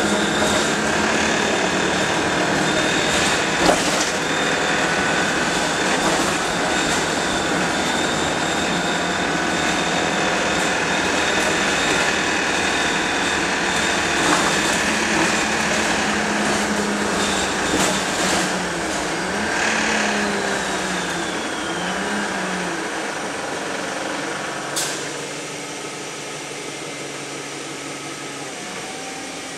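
Inside a Wright StreetLite single-deck bus on the move: a steady mix of engine and road noise with occasional knocks and rattles, the engine note rising and falling about two-thirds of the way through. Near the end a sharp click comes and the noise drops to a quieter, even hum.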